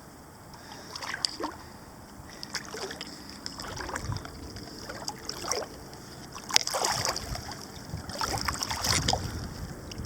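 Lake water splashing and sloshing irregularly around a person wading and bathing in it, with small waves lapping. A louder splash comes about six and a half seconds in.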